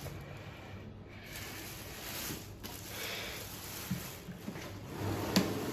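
Faint handling noise as the key cutting machine and its packaging are moved: soft rustling with a few light knocks and a sharp click near the end.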